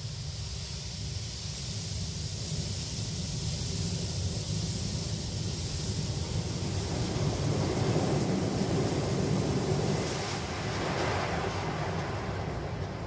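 Automatic car wash heard from inside the car: water spraying and rotating brushes scrubbing over the windshield and body, a steady rushing over a low rumble. It grows louder and is loudest about two-thirds of the way through as a brush passes across the glass.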